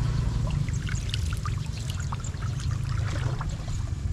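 Water trickling and dripping: many small scattered drips over a steady low rumble.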